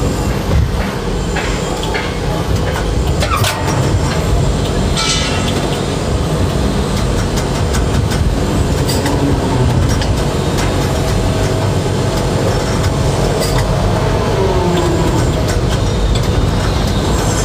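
Tower crane running, heard from inside the operator's cab as he works the joystick: a steady mechanical rumble and low hum from the drives, with scattered clicks and a brief falling whine late on.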